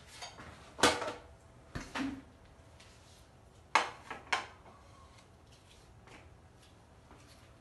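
Ceramic plates and mugs clinking and knocking as they are set down on a table: a loud clink about a second in, two more just after, and a quick run of three near the middle, then quiet room tone.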